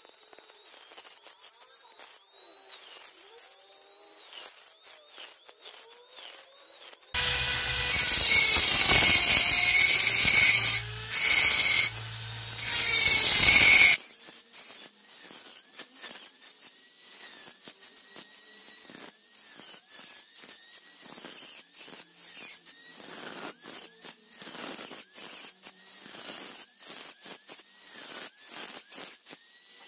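Handheld rotary tool with a small ball burr grinding and engraving a clam shell in quick repeated strokes, its whine dipping in pitch each time the burr bites. For about seven seconds in the middle a much louder harsh noise covers it.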